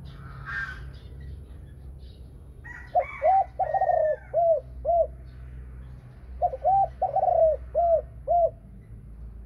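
Pied Thai-strain spotted dove cooing two phrases. Each phrase is two short coos, one long drawn coo, then two short trailing coos.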